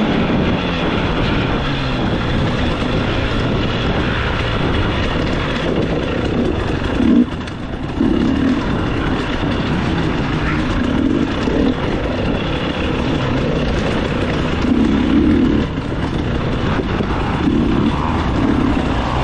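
Dirt bike engine run hard through an off-road course, the throttle repeatedly opened and eased so the engine note surges and drops, with a brief lull about seven seconds in.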